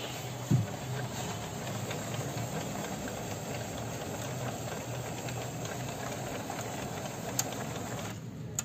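Epson ink-tank printer's internal mechanism running with a steady mechanical noise after power-on, with one short knock about half a second in. It is the strange noise from inside that comes with the printer's blinking red error light, and it stops shortly before the end.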